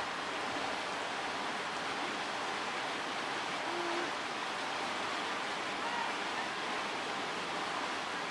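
Steady rushing noise, like running water, with one brief faint tone a little before the middle.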